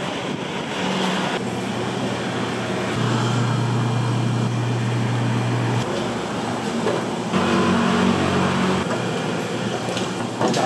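Steady rumbling background noise of a street food stall, with a low machine-like hum that shifts in pitch and level abruptly every few seconds. A short knock comes near the end.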